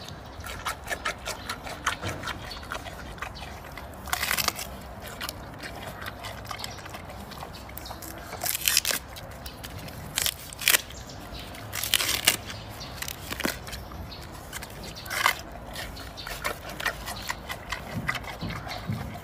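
Giant panda biting and chewing bamboo shoot: a run of small crackling chews broken every second or two by louder, sharp crunches as it bites off pieces.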